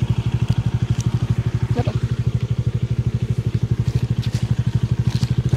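Motorcycle engine running steadily, its exhaust beating in rapid, even pulses.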